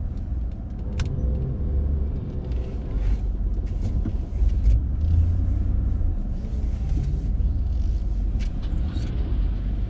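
Low, steady rumble of a pickup truck moving slowly while towing a travel trailer, heard from inside the cab, with a few sharp knocks along the way.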